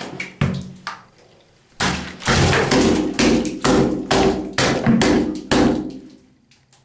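A quick run of loud knocks and thumps, several a second, starting about two seconds in and dying away near the end, with a few lighter knocks before it.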